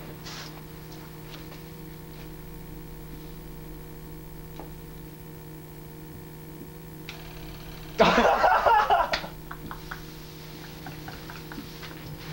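Steady electrical mains hum. About eight seconds in, a loud, sudden burst of noise cuts in and lasts a little over a second.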